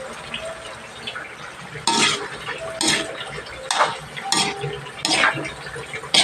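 Metal spatula scraping and knocking against a metal wok as cabbage and vegetables are stir-fried. There are about six strokes, roughly one a second, starting about two seconds in, each with a short metallic ring.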